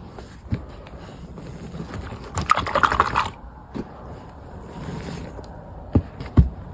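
Reformed gym chalk crunching as it is crushed by hand: a dense run of crackling crunches about halfway through, and two sharp cracks near the end.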